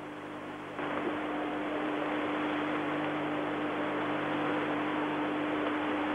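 Steady hiss with a constant low mains hum from an old videotaped TV broadcast. The hiss steps up in level about a second in and then holds steady.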